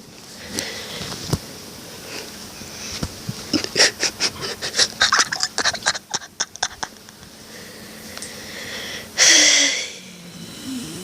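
A man snoring: rasping, wheezing breaths, a quick run of short sputtering rasps in the middle, and one loud snorting inhale about nine seconds in.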